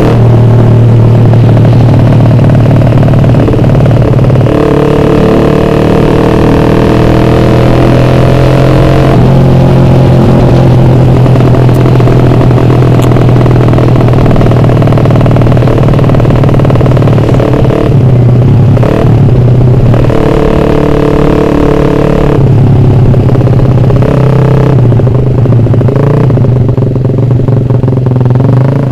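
Suzuki Satria F150's ported single-cylinder four-stroke engine through a very loud open roadrace exhaust, heard from the rider's seat while riding. The pitch rises and falls with throttle and gear changes, easing off a few times in the second half.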